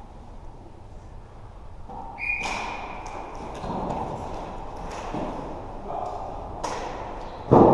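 Floorball play in a sports hall: sharp clicks of sticks and the plastic ball, a short referee's whistle blast about two seconds in, and a loud thud at the very end.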